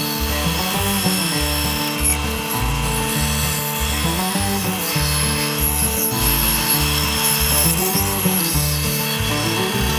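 Craftsman 10-inch bandsaw cutting a curved line through a wooden board, a steady rasp of blade through wood, under background music with a beat about twice a second.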